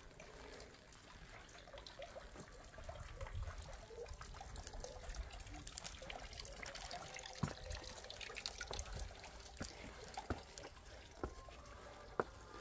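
Water trickling, faint, with scattered sharp footstep-like clicks on stone. Near the end, faint steady musical tones come in.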